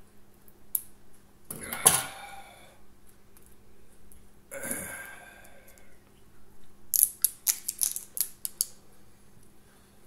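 Two heavy, breathy exhales a few seconds apart, then a quick run of small sharp clicks and taps from hands handling small objects.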